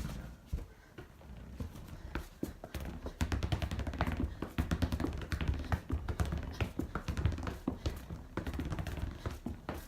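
Quick, irregular taps and thuds of feet working on a hard floor, many strikes a second, busier from about three seconds in.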